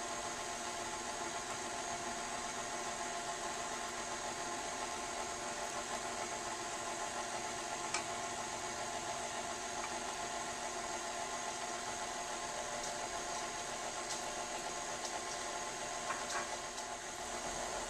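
KitchenAid stand mixer's motor running steadily, its beater turning through butter, sugar and eggs in a stainless steel bowl, with a whine made of several steady tones. A couple of faint clicks stand out briefly, about eight seconds in and near the end.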